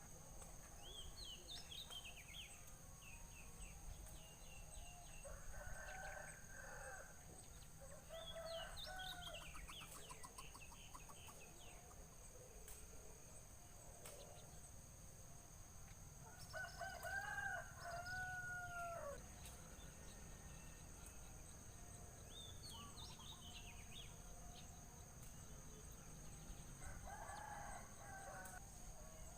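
Faint rooster crowing several times, the longest crow a little past the middle, with short runs of high chirps from small birds in between. A steady high whine runs underneath.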